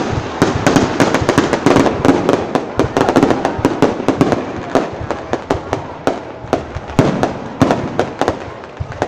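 Fireworks going off in a dense barrage of sharp bangs and crackles, several a second, over a steady haze of noise; the bangs thin out somewhat in the second half.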